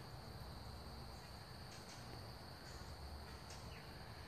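Crickets trilling steadily and faintly, one unbroken high trill, over a low background rumble.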